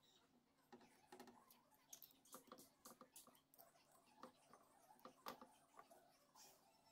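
Faint, irregular light clicks and taps, several a second at uneven spacing, with one sharper knock about five seconds in.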